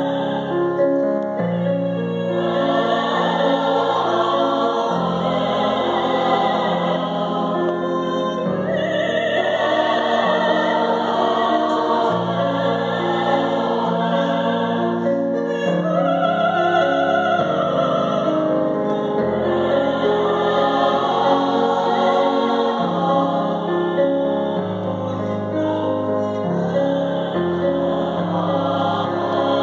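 Mixed choir of men and women singing a Christmas carol in full harmony, with keyboard accompaniment. The chords are held and change every two or three seconds.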